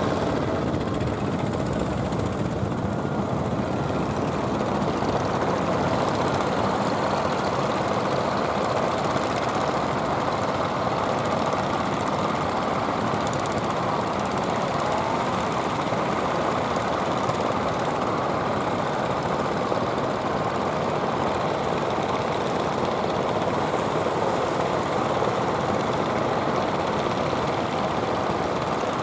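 Fishing boat engine running steadily at an even pace, with a dense rapid chug.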